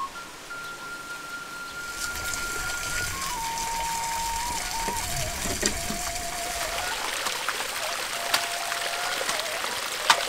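Background music: a slow, flute-like melody of long held notes stepping between pitches, over a steady hiss that comes in about two seconds in, with a few sharp clicks.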